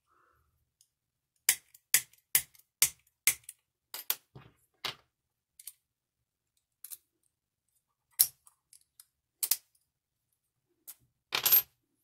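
Sharp metallic clicks and clacks from a cheap laminated steel padlock being handled and worked in the hands. There is a quick run of about two clicks a second starting about a second and a half in, then scattered single clicks, and a louder rattle near the end.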